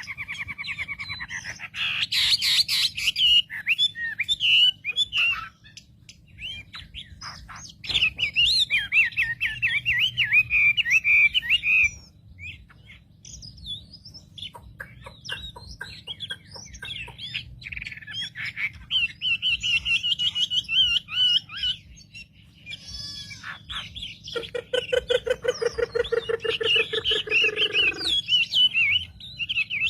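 Wambi songbird singing in quick, varied chattering phrases and trills, broken by short pauses, with a lower, buzzy drawn-out call from about 24 to 28 seconds in. A faint low hum runs underneath.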